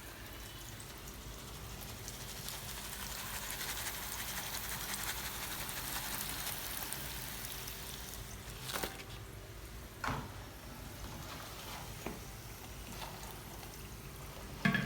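Hot oil sizzling as potatoes fry, a steady hiss that swells and then eases, with a few light knocks of utensils or cookware.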